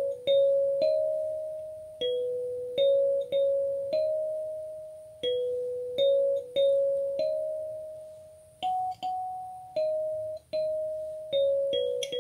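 Gecko kalimba plucked with the thumbs, playing a slow melody of single notes, each struck sharply and left to ring and fade before the next.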